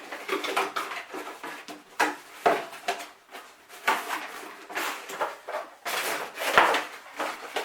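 Packaging and accessories from a NAS box being handled: irregular knocks, clicks and rustles as things are taken out and set down.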